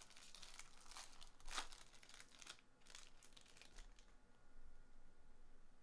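Faint crinkling and tearing of a Topps baseball card pack's wrapper as it is opened by hand, loudest about a second and a half in and dying away before the middle.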